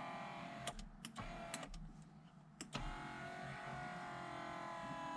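Mercedes-Benz W203 power steering-column adjustment motor whining as it moves the column, with the drive running through the repaired dog-bone coupling. The motor stops under a second in, a few sharp clicks follow, and it starts again about three seconds in, its pitch falling slightly as it runs.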